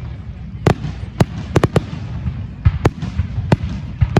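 Aerial fireworks bursting: a rapid, irregular series of sharp bangs, about eight in four seconds, several coming close together near the middle, over a steady low rumble.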